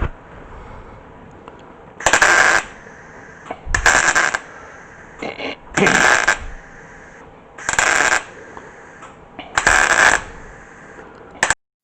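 Welding on a car's front pillar in short stitch bursts: about five bursts of under a second each, roughly two seconds apart, with a couple of briefer ones between.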